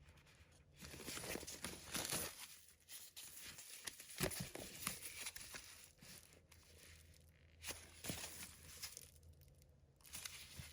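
Packaging wrap being handled, rustling and crinkling in irregular bursts, with a few light clicks.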